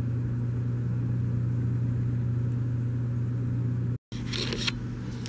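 Steady low room hum, the loudest sound throughout. It breaks off for an instant about four seconds in, followed by a brief rustle and a light tap as soap bars are handled on paper.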